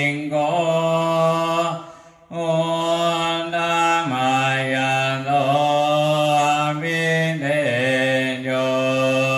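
Theravada Buddhist chanting in Pali: a low voice holds long, drawn-out syllables on a nearly level pitch, with a brief pause for breath about two seconds in.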